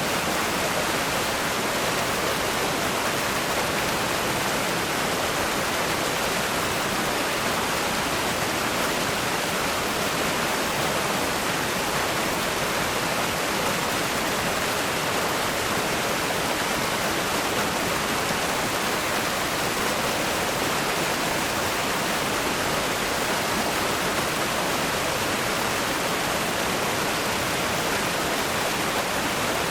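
River rapids rushing over rocks: a steady, unbroken roar of fast-flowing water, even in level throughout.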